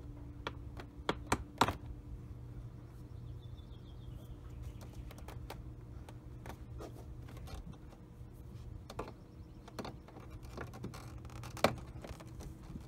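Sharp plastic clicks and pops as push fasteners (Christmas tree clips) are pried out of a Jaguar X300 door panel with a plastic trim tool. A few clicks come close together about a second in, and the loudest comes near the end, over a steady low hum.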